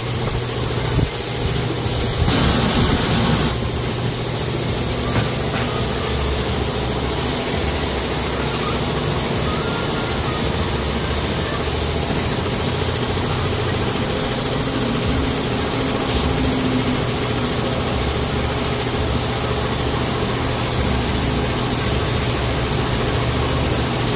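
Steady mechanical hum of a running machine, with a brief loud hiss a little over two seconds in.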